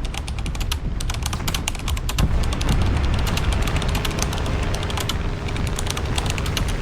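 Seaplane taking off from water: a heavy low rumble with dense, rapid crackling clicks throughout.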